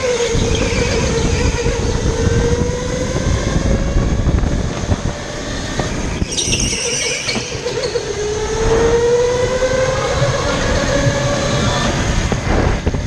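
Electric go-kart motor whining, its pitch rising and falling with speed, over a rumble of wheels and wind noise on the microphone. About six seconds in there is a brief high squeal of the tyres sliding through a tight turn.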